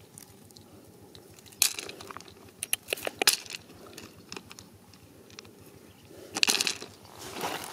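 Stones and nuggets clicking and knocking together as a hand picks them out of loose, stony dirt. The clicks bunch up about two to three seconds in, and near the end there are scraping rustles through the gravel.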